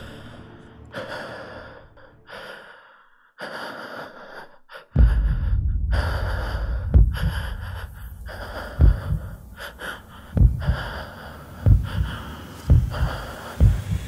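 Heavy, gasping breaths in separate airy bursts. About five seconds in, a louder layer of deep, irregular thumps and low rumble joins them.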